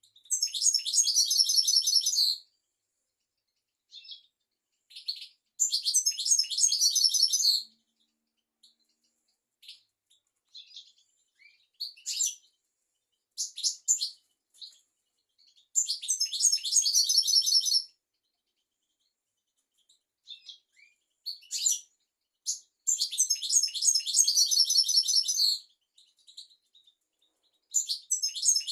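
European goldfinch singing: five phrases of rapid trilled notes, each about two seconds long, with short scattered twitters and call notes in the pauses between them.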